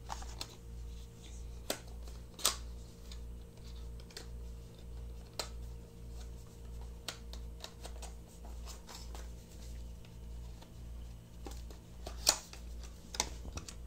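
Scattered sharp clicks and light rustling of a fitness band, its boxes and plastic bags being handled, over a steady low hum that pulses about three times a second. The loudest click comes about twelve seconds in.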